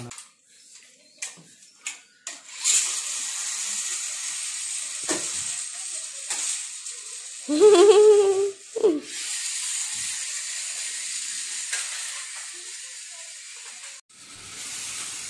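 A steady high hiss with a few light clicks and knocks. Near the middle comes a child's short voiced call, the loudest sound here.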